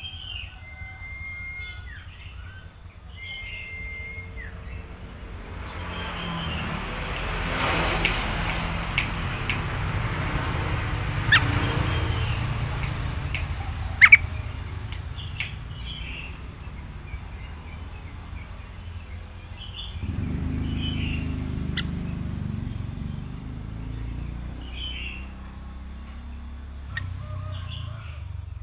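Yellow-vented bulbul (trucukan) giving short chirps and quick gliding calls now and then. A rushing noise swells under it for several seconds in the first half, and a low rumble comes and goes near the end.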